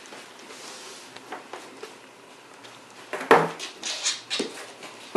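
A few sharp knocks and clatters on a hard floor, the loudest about three seconds in with smaller ones after it: a cat running and pouncing on a laminate wood floor while playing with a string toy.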